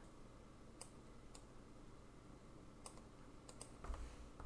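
Faint computer mouse clicks, about five spread through a near-silent room, with a soft low thump near the end.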